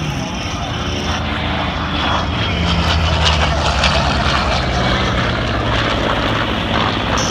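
Douglas A-1 Skyraider's large radial engine and propeller droning as it makes a low flyby. It grows louder to a peak about three to four seconds in, and its pitch drops as it passes.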